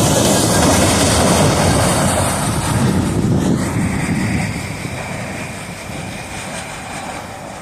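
Mixed freight train rolling past, a loud steady rumble and rush of wheels on rail with a faint thin squeal high above it. The noise fades after about four and a half seconds as the train moves away.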